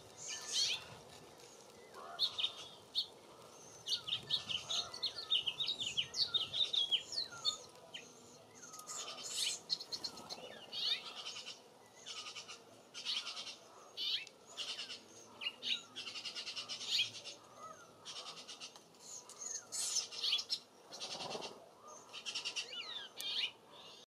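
Small songbirds chirping and calling: bursts of quick, high chirps and short whistled notes with brief pauses between them.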